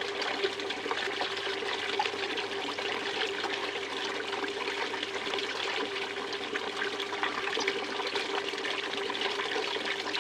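Water running steadily over a DIY Miller table, a shallow even trickle across the table surface as sluice concentrates are washed for fine gold.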